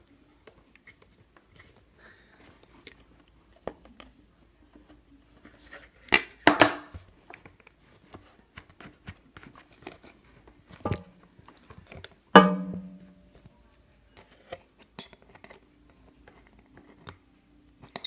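Scattered clicks and small knocks of hands handling wire connectors and the plastic selector switch housing of an Arno Silence Force fan, with louder clatters about six, eleven and twelve seconds in; the one near twelve seconds rings briefly.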